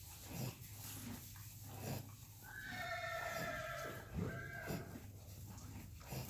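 An animal snoring in its sleep: soft breaths every second or two, with a drawn-out high whistle of about a second and a half near the middle and a shorter one just after.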